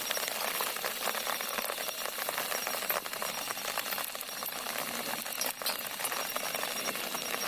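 Food frying in hot oil in a pan, a steady sizzle full of fine crackles.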